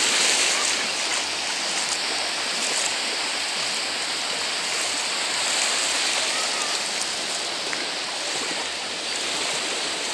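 Small waves breaking and washing over the shallows at the water's edge of a sandy beach: a steady hiss of surf.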